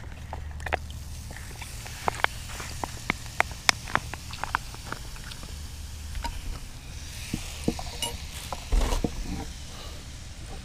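Light clicks and taps of camp cooking gear being handled, coming irregularly and thickest in the first five seconds, over a steady low rumble; a louder, longer clatter comes about nine seconds in.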